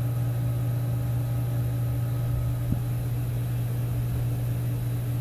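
Steady low hum of running heating-system machinery, with a few fainter steady tones above it and a faint tick about halfway through.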